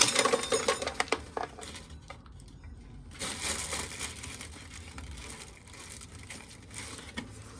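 Dry corn kernels crackling and rattling as they are shelled off the cob, in a dense burst at the start and another rush about three seconds in.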